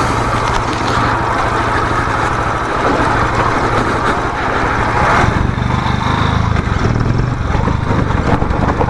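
Motorcycle engine running while the bike is ridden over rough off-road ground, with a steady rushing noise over it. About five seconds in, the engine note changes and grows fuller and louder.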